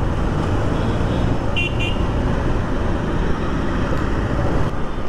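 Steady motorcycle riding noise, engine and rushing wind, with two short high horn beeps in quick succession about a second and a half in.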